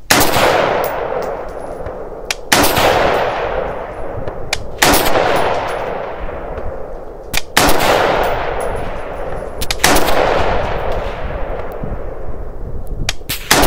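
Slow, aimed single shots from a scoped AR-15-style rifle in 5.56 mm, about every two and a half seconds. Each sharp report is followed by a long echo that fades out over roughly two seconds.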